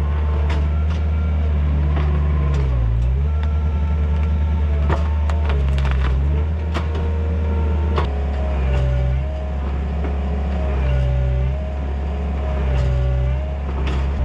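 Takeuchi TL130 compact track loader's diesel engine running hard under load, its pitch dipping and recovering several times as it works. Scattered sharp knocks and clanks come through over the engine.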